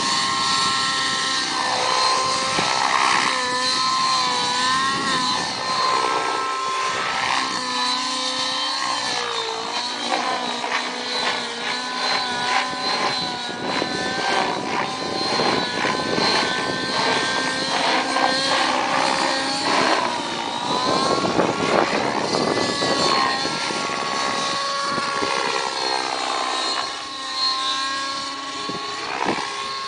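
Nitro-engined Rave 90 radio-controlled helicopter flying. Its engine and rotor sound rise and fall in pitch again and again as it manoeuvres.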